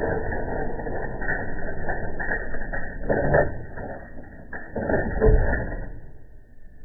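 The metal mechanism of a vintage National cash register clicking, ratcheting and clunking as parts are worked back into it. There are louder clunks about three and five seconds in, and the sound stops about six seconds in.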